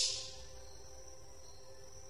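The tail of a harsh, hissing call from a caged grey-cheeked bulbul (cucak jenggot), fading out within the first half-second. After that there is only a faint, steady high tone in the background.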